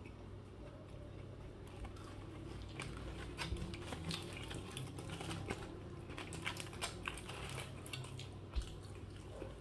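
A mouthful of burger being chewed with the mouth closed: many small, irregular wet clicks, mixed with crinkles of the aluminium-foil wrapper, over a steady low hum.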